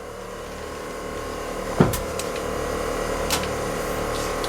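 Electric air compressor for the truck's air horn and air-bag suspension running steadily, refilling the air tank; it grows louder over the first second or two, with one sharp knock about two seconds in.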